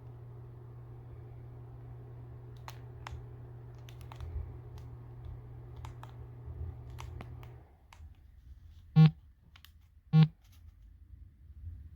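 Steady low electrical hum from a remote-controlled ceiling fan light unit, with a few light clicks. The hum cuts off abruptly about two-thirds of the way through, and then two short, loud, buzzy beeps sound about a second apart.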